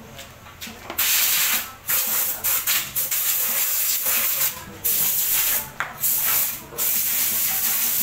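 Compressed air blowing from a blow gun on a coiled air hose: loud hissing in repeated bursts with short breaks, starting about a second in.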